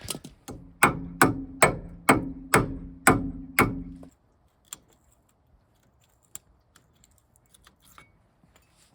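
A hammer striking metal about seven times, roughly two blows a second, each blow ringing. After that come only a few faint clicks and taps.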